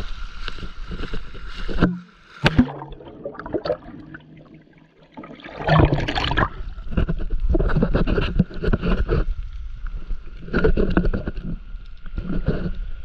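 Shallow seawater splashing and sloshing right against the microphone as the camera skims the surface, in uneven surges every second or so. About two seconds in it drops to a quieter, duller sound for a few seconds, then the splashing comes back.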